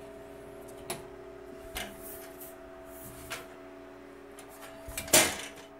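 Metal top cover of a Dell PowerEdge R710 rack server being unlatched and lifted off by hand: a few light clicks and taps from the release latch and cover, then a louder scraping clatter of the sheet-metal cover about five seconds in.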